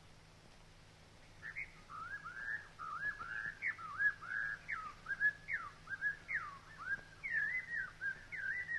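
A songbird chirping and warbling: a quick run of short whistled notes that swoop up and down, starting about a second and a half in after near quiet.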